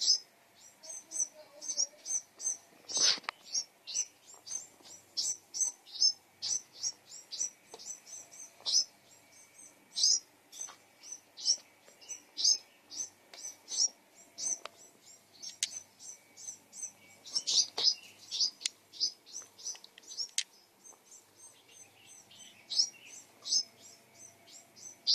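Small birds chirping: a steady run of short, high chirps, a few each second, with one louder call about three seconds in.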